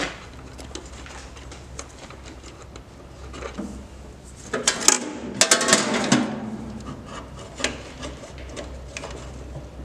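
Small metal clicks and rattles of hand tools and a terminal nut being worked off a wiring terminal, with a denser run of clicks and rubbing around the middle, over a steady low hum.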